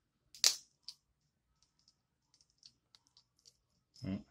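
Baby king crab shell cracking sharply under the fingers about half a second in, followed by small clicks and crackles as the shell is picked apart. A short, dull thump comes near the end.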